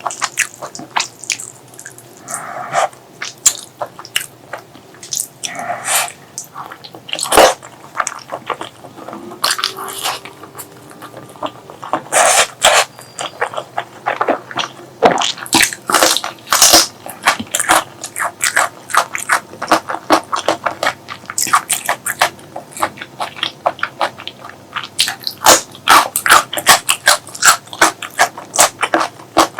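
Close-miked eating sounds: wet chewing and lip-smacking of pork leg curry and rice, a dense run of sharp irregular clicks and squelches.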